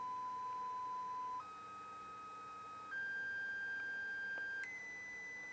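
Steady sine test tone from an audio analyzer's frequency sweep, stepping up in pitch every second and a half or so, from about 1 kHz to about 2 kHz, with faint overtones. It is a THD+N sweep of a class D amplifier driven at 8 watts.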